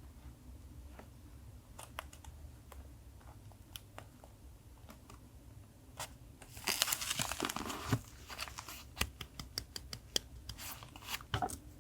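Journaling paper being handled. Scattered light taps and clicks, then, a little past halfway, about a second and a half of loud paper rustling, followed by more taps and clicks.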